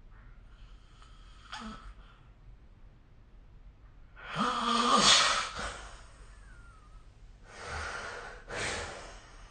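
A sleeping person snoring and breathing heavily. About four seconds in comes a long, loud noisy breath with a low buzzing snore at its start. Near the end come two shorter breaths.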